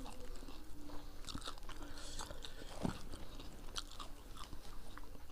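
Close-up eating sounds of panipuri (fuchka): crisp puri shells being bitten and crunched, then chewed, with one louder thump about three seconds in.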